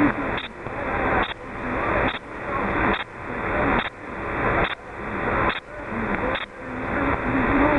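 Radio static from an HF transceiver's receiver on the 27 MHz band, pulsing in a regular rhythm of about one cycle a second: each pulse cuts out sharply with a short high beep, and the hiss then swells back up, about eight times.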